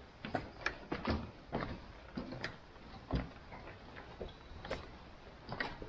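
Footsteps on trail steps: irregular clicks and knocks about twice a second, a few landing with a duller thud.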